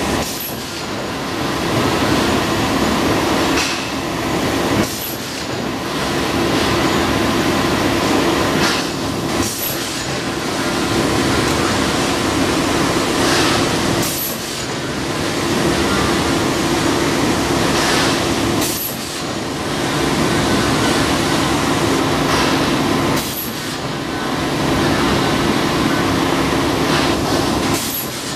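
Welded steel pipe mill running: steady, loud machinery hum with a held tone, broken by a short change with a high click about every four and a half seconds.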